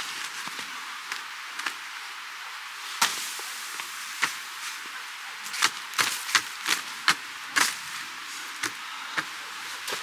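Sharp knocks and clicks of a person handling gear and moving about, bunched together about six to seven and a half seconds in, over a steady hiss.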